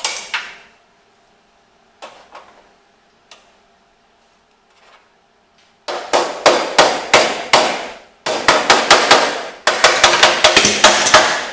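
A hammer striking a sheet-steel repair panel on a car tailgate. A few single blows come first, then from about halfway fast runs of ringing strikes, about four a second.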